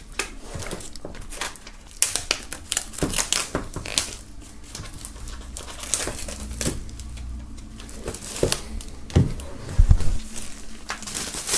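Plastic shrink-wrap being slit with a knife and peeled off an album sleeve, crinkling and tearing in many short crackles. A couple of dull knocks about nine to ten seconds in as the sleeve is handled on the table.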